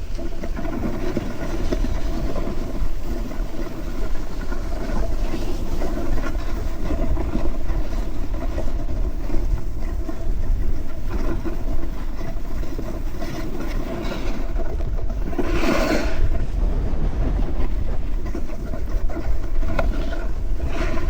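Snowboard running over packed snow: a steady rumbling scrape from the board, with one brief louder scrape near the end.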